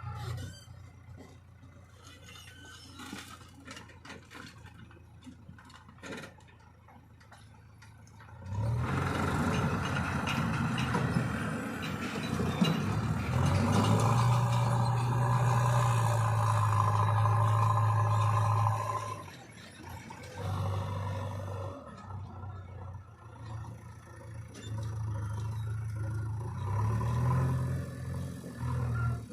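JCB 3DX backhoe loader's diesel engine working under load: a faint low idle for the first several seconds, then revving up hard at about eight seconds and holding high revs for about ten seconds before dropping back, with a shorter rev-up near the end.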